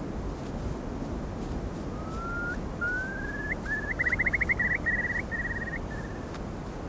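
Bird song: slurred rising whistles that build into a fast bubbling trill about four seconds in, then a few level whistled notes, over a steady low rumbling noise.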